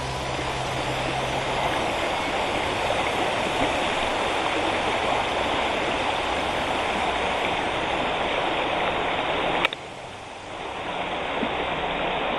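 Nera River water rushing steadily. About ten seconds in there is a click, and the rushing briefly drops away before it swells back.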